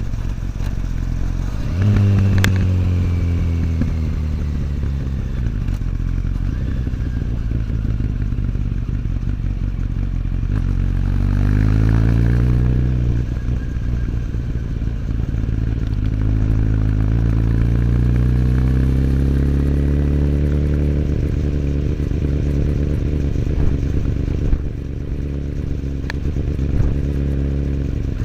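Kawasaki ZX10R inline-four with an Akrapovic slip-on exhaust, ridden through the gears. The engine note jumps up about two seconds in, then falls away. It climbs and drops sharply at a gear change around the middle, then rises again and eases off near the end.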